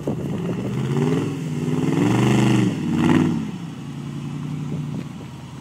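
Off-road trial buggy's engine revving under load as it climbs out of a hollow. The revs rise and fall a few times, highest between about two and three seconds in, then drop back to a lower, steadier note.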